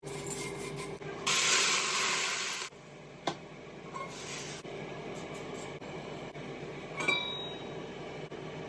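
Liquid hitting a hot carbon steel wok gives a loud hiss for about a second and a half, then dies back to a low hiss over the gas burner's steady rush. A single metal clank with a brief ring comes near the end.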